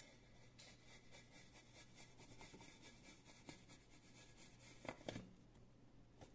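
Near silence: faint rubbing and scraping as a steel-wool-wrapped tin can is pushed down into a larger tin can, with two soft taps about five seconds in.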